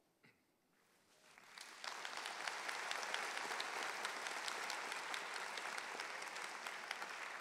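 Audience applauding: the clapping swells up over about a second, starting a little over a second in, then holds steady.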